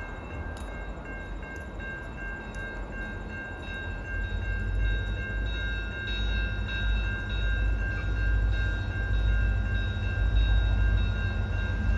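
Diesel-electric freight locomotives approaching with a train of tank cars. The low engine rumble grows louder from about a third of the way in. Thin, steady high-pitched tones run over it.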